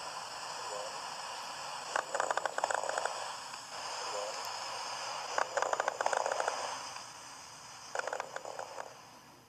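Tracheal rattle: a wet rattle of secretions in the trachea and large bronchi, coming in three bursts about three seconds apart, one with each breath, over a steady hiss. It is a sign of secretions that a gravely ill patient with impaired consciousness cannot cough up and clear.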